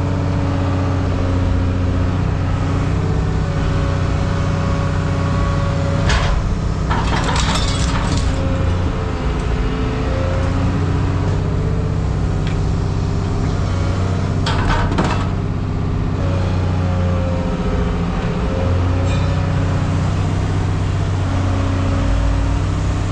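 An engine running steadily, its pitch drifting slightly, with several bursts of rattling clatter, about six seconds in, around seven to eight seconds, and again about fourteen seconds in.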